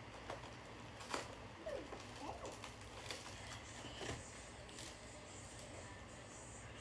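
Quiet room with a few faint sharp clicks and rustles of snack wrappers being handled, and a small child's brief soft vocal sounds about two seconds in.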